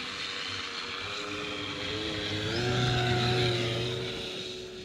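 Electric RC T-6A Texan II model taking off and climbing out: its Power 90 brushless motor and three-blade propeller whir along with an onboard speaker sound system playing a turboprop engine sound. The pitch steps up about two and a half seconds in, and the sound grows louder then fades as the plane passes and flies away.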